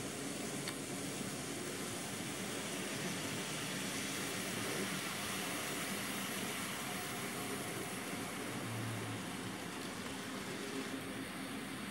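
Model railroad diesel locomotives running along the layout track, giving a steady mechanical hum with a faint low engine-like drone.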